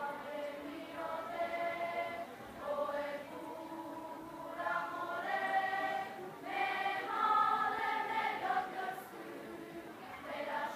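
Children's choir singing together in phrases of held notes, with short breaks between the phrases.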